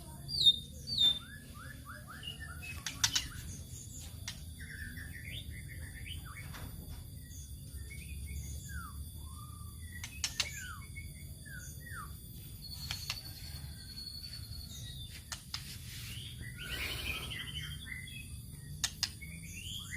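White-rumped shama (murai batu) singing a string of short, varied whistled notes and sliding phrases, mixed with harsh rattling 'kretek' calls used to provoke other shamas.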